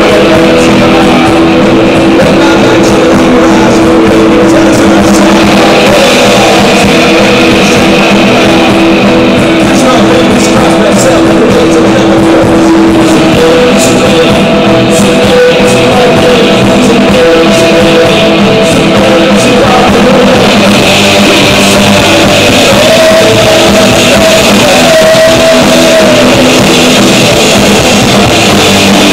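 Live rock band playing loudly: male vocals over electric guitar, drums and bass.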